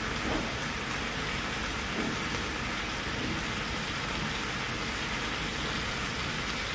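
Steady hiss of food sizzling in a frying pan over a gas flame.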